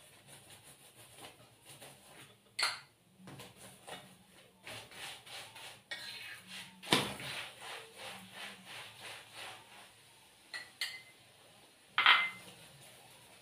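Metal spoon scraping and clinking against a frying pan as oil is spread over a chapati, with a run of quick strokes in the middle and a few sharper clinks, the loudest about seven and twelve seconds in.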